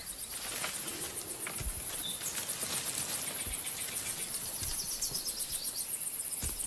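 Steady high-pitched chirring of insects, an even rapid pulse, with a few soft low thuds now and then.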